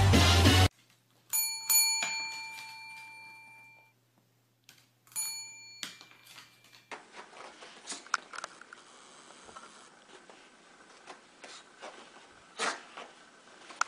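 A desk service bell rung by a dog's paw: two quick dings about a second in, then two more about five seconds in, each ringing on and fading away.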